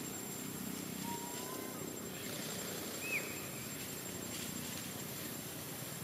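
Outdoor ambience: a steady hiss with a faint, high, steady tone running through it. A short rising whistled call comes about a second in, and a brief, sharper, high chirp about three seconds in.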